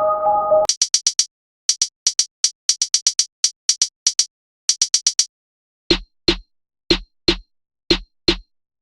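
Electronic drum-machine music. Sustained chime-like tones cut off under a second in, followed by quick clusters of short, high, hi-hat-like clicks. From about six seconds in, a sparse beat of full drum hits plays at roughly two or three a second.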